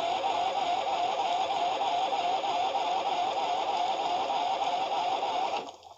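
Electric starter cranking the 2006 Huskee's small engine: a steady whine that wavers quickly with each compression. The engine doesn't catch, and the cranking stops abruptly shortly before the end.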